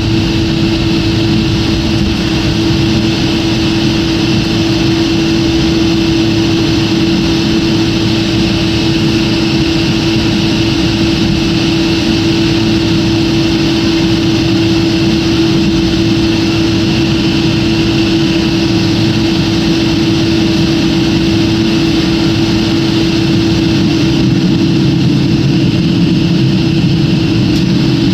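Airliner cabin noise from a window seat: a steady rush of jet engines and airflow with a constant low hum that does not change.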